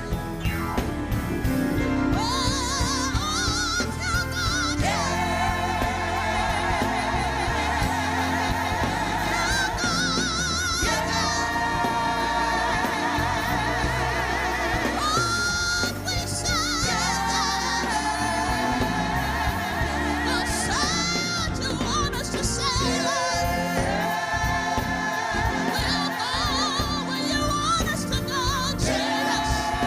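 Gospel music: singing with wavering held notes over instrumental accompaniment, continuing without a break.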